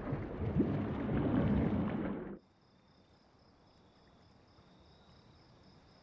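Muffled underwater churning and bubbling from a film soundtrack, which cuts off suddenly about two and a half seconds in. Near silence follows, with only a faint high steady whine.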